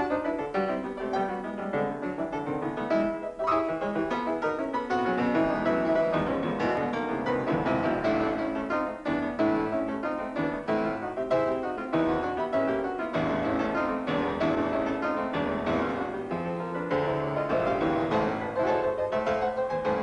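Piano music playing continuously as a soundtrack, with many quickly changing notes.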